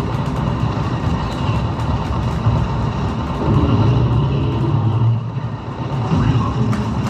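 Loud, steady vehicle-like rumble from an interactive shooting ride's sound effects, with many faint clicks throughout.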